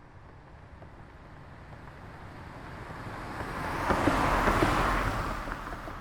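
A car driving past: its engine and tyre noise grows steadily as it approaches, is loudest about four to five seconds in, then fades as it moves away.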